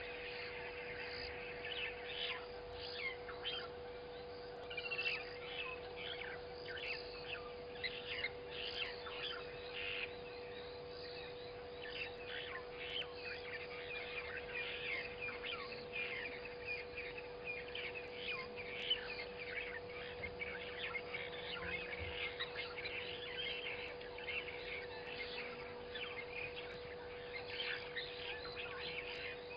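Many small birds chirping and calling over one another in a dense, unbroken chorus of short high notes, over a steady low electrical hum.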